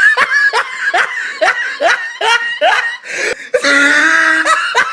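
A person laughing hard in quick repeated bursts, about three a second. A little before the end, the laughter rises into a longer, high-pitched squeal.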